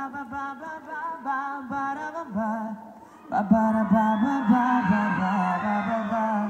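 Male pop vocal group singing through the stage PA during a sound check: one voice at first, then several voices join in harmony, louder, about three seconds in.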